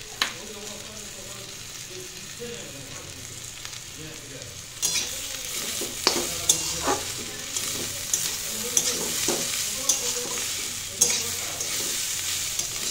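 Chopped vegetables and soya chunks sizzling in a hot metal kadai. About five seconds in, a metal spatula starts stirring and tossing them: the frying gets louder, with the spatula scraping and clinking against the pan every second or so.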